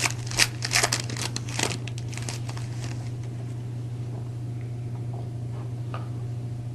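Foil wrapper of a hockey card pack crinkling and tearing as it is handled and opened, in a quick flurry over the first three seconds, then quieter, over a steady low hum.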